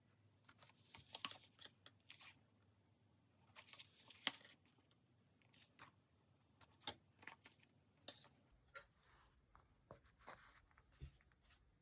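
Faint rustling and peeling of paper stickers being handled, with scattered small taps and clicks.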